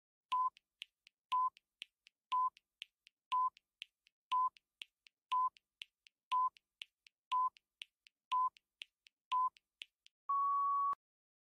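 Countdown timer sound effect: a short electronic beep once a second, ten in all, with faint ticks between them, ending in a longer, slightly higher beep that cuts off suddenly as the timer reaches zero.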